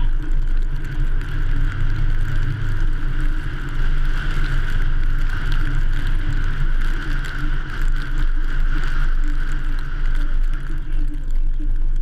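Ford F-150 pickup driving along a snow-covered road, heard from a camera mounted outside on its hood: a steady low rumble of wind and road noise with a band of hiss above it.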